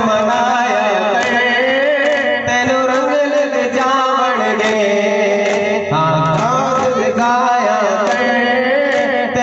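Duff muttu: men's voices chanting a devotional song in a steady melody, with frame drums (duff) struck along with it.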